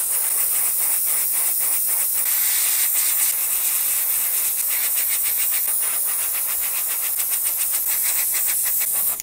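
Airbrush spraying paint onto a lure: a steady hiss of compressed air with a fast flutter in it, cutting off suddenly at the end.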